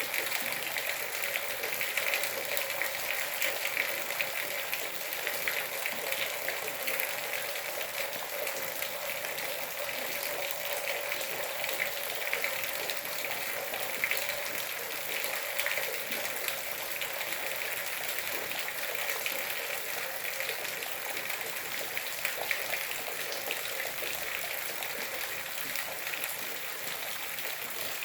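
Steady rain falling, an even hiss of many small drops that keeps going without a break.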